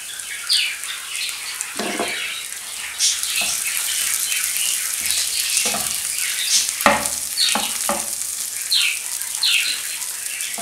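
Onions and mashed boiled potato sizzling in a nonstick frying pan. They are stirred with a wooden spatula that scrapes and knocks against the pan several times, and the sizzle grows louder about three seconds in.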